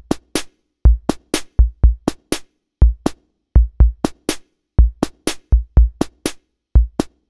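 Bare drum-machine beat opening an electronic track: deep kick drums and short crisp hi-hat clicks in a sparse, syncopated pattern, with silence between the hits.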